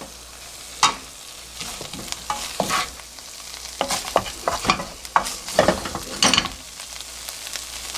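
Wooden spatula scraping and pushing spicy tuna and onion around a nonstick wok, a run of irregular scrapes and knocks, over a faint frying sizzle.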